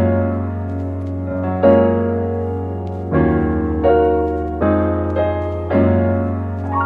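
Background music: slow piano chords struck about once a second over a steady low bass note.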